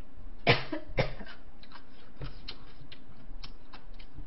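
A woman coughing twice in quick succession, about half a second apart, hand over her mouth, then faint light clicks at the table.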